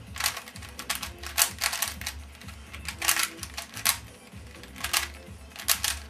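Black-plastic DIY 3x3 speedcube being turned fast in a timed solve: quick irregular flurries of plastic clicking and clattering as the layers snap round. Background music with a steady low bass runs underneath.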